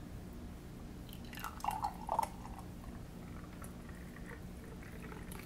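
A thick, grainy meal-replacement shake poured from a pitcher into a ceramic mug, with a brief splashing glug about one and a half to two seconds in, over a faint steady hum.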